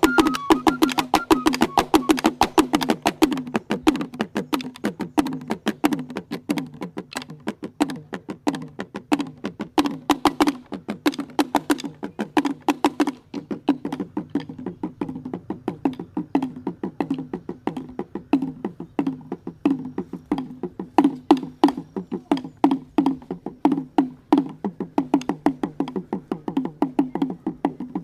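Traditional T'boli music: a fast, steady run of struck, woody-sounding notes on one or two low pitches, with a higher melody line that falls away about two seconds in.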